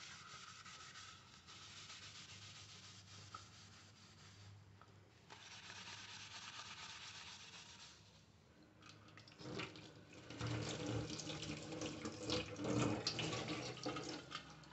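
Sponge rubbing over an aluminium lid coated with cleaning paste, a soft scrubbing hiss. About two-thirds of the way through the lid is moved over a stainless steel kitchen sink, with a few knocks, and tap water runs over it as the paste is rinsed off.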